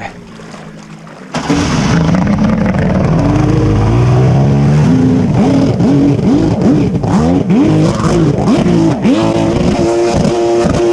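A jet ski engine comes in suddenly about a second in, then revs up and down over and over, its pitch rising and falling repeatedly as the throttle is worked.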